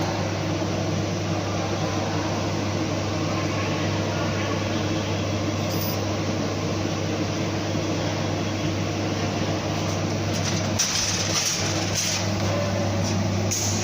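CNC plasma cutting machine running with a steady low drone and hiss, with a few short hissing bursts in the last few seconds.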